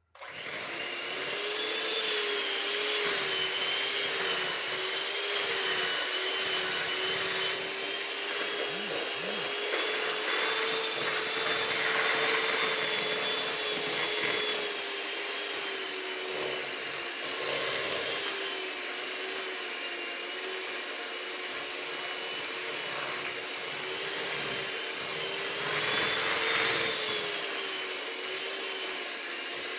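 Electric mixer running steadily, beating a thick peanut butter and butter batter. Its motor hum wavers slightly in pitch as it works through the mixture. It starts abruptly at the very beginning.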